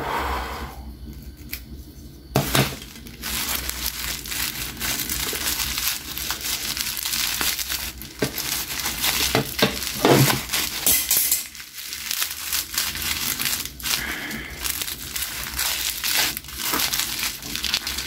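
Plastic bubble wrap crinkling and rustling as it is handled and pulled off a small bottle and applicator pad, with many sharp crackles. It is quieter for the first two seconds, then a sharp crackle sets off steady crinkling.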